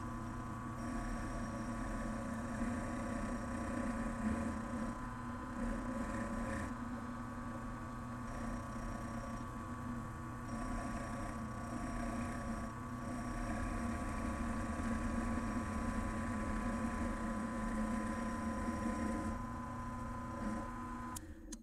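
Bench mill-drill running, its end mill cutting a metal bar held in the machine vise: a steady motor whine and hum with a rough cutting noise that swells and eases a little. It cuts off abruptly near the end.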